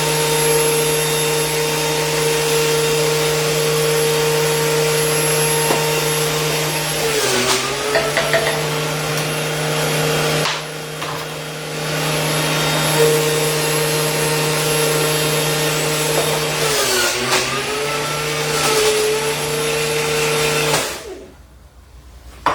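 Electric juicer motor running steadily, juicing apples and carrots; its pitch sags twice under load, and it switches off near the end.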